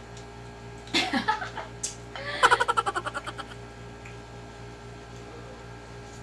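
A person laughing: a short burst about a second in, then a run of quick ha-ha pulses that fades away, over a steady low electrical hum.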